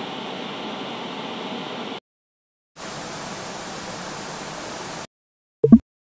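TV 'no signal' static: a steady hiss in two stretches of about two seconds each, with a brief silent break between them. Near the end comes a short, sharp double click, louder than the static.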